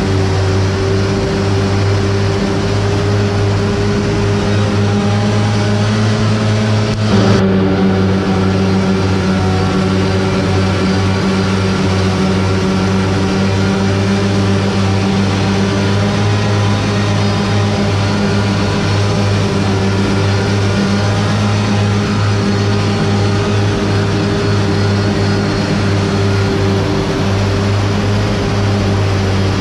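Steady machine hum with an even, constant pitch, which shifts slightly with a brief blip about seven seconds in.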